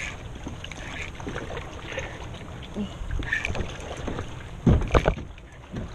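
Wind rumbling on the microphone over water moving around a plastic fishing kayak, with two sharp knocks close together about five seconds in.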